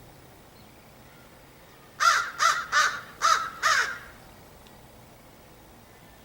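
A crow cawing five times in a quick, even series, starting about two seconds in and lasting about two seconds.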